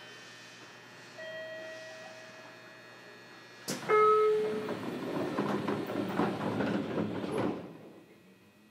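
Sounds inside a JR Kyushu 303 series train car: a faint steady tone, then a few seconds in a sudden loud rush of noise with a brief tone at its start, lasting about four seconds before fading away.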